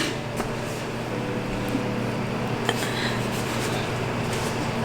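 Steady low background hum with a few faint light clicks.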